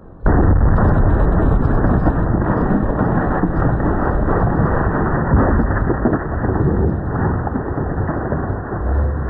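A homemade log explosive going off with a sudden loud blast, followed by a long, heavy rumbling noise that slowly fades.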